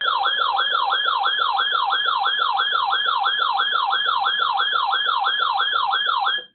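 Electronic siren tone sweeping quickly down in pitch about three times a second, over and over at an even level, then cutting off abruptly.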